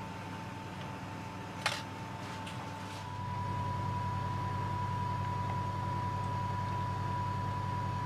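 Steady low electrical hum of room tone with a thin, faint steady whine above it. One sharp click comes about a second and a half in, and the hum grows louder about three seconds in.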